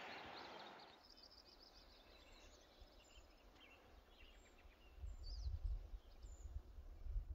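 Faint, scattered bird chirps over a quiet mountain-meadow ambience. From about five seconds in, an uneven low rumble of wind on the microphone joins them.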